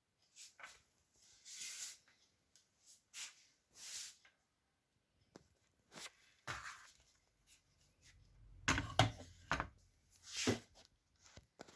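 A series of short scrapes, rustles and knocks at irregular intervals, with a louder cluster of knocks about nine seconds in; no motor is running.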